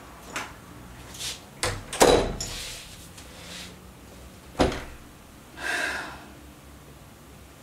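Wooden front door being shut: a few latch clicks and rattles, then a loud thud about two seconds in, and another sharp knock a couple of seconds later.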